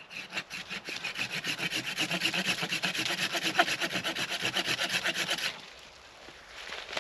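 Handsaw cutting through a standing green sapling near its base: quick, even back-and-forth rasping strokes that stop about five and a half seconds in.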